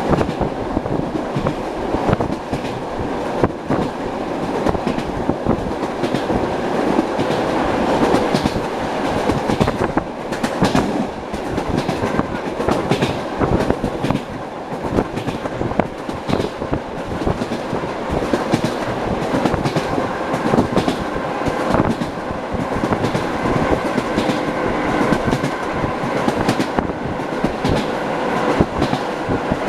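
Wheels of an ED9M electric multiple unit clattering over rail joints at running speed, heard from inside the carriage as a continuous rumble broken by sharp clicks.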